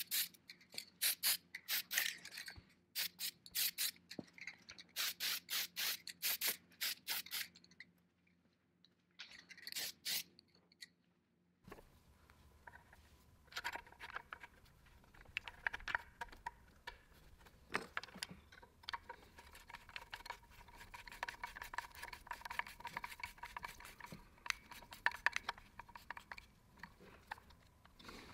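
Quick repeated scraping strokes of hand work on a workpiece, about three a second, in short runs with pauses, breaking off abruptly about twelve seconds in. After that come quieter scattered clicks and light rubbing of parts being handled.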